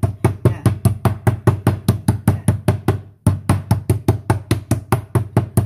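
Raw beef slices being pounded flat on a board to tenderise them, so the meat won't be tough when braised: rapid, even blows about five a second, with a brief pause about three seconds in.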